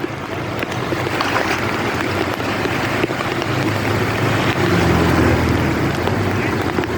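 Heavy rain pouring, with a steady low rumble under it that grows louder about halfway through.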